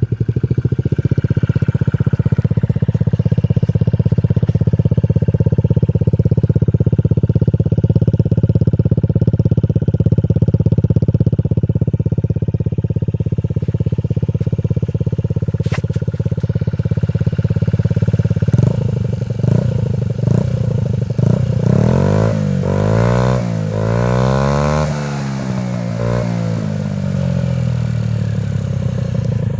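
2019 Honda Ruckus scooter's 49cc four-stroke single-cylinder engine, through a Big Gun Evo S aftermarket exhaust, starting up and idling steadily. About two-thirds of the way in it is revved in several quick throttle blips, rising and falling in pitch, then settles back to idle.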